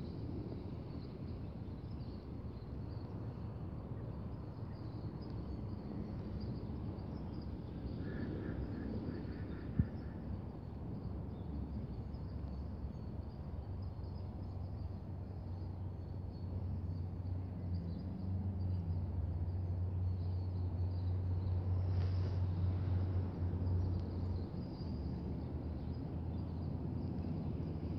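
Outdoor pasture ambience: a low steady drone that grows louder past the middle, over a faint steady high hiss. A brief high trill comes about eight seconds in, and a single sharp click follows shortly after.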